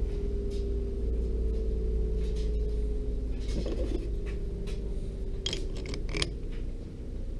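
Steel chuck keys clinking as they are picked up and fitted into a WEN LA4444 four-jaw lathe chuck to tighten the jaws on a wood block: a short scrape about halfway, then a quick run of sharp metallic clicks a second or two later, over a steady low hum.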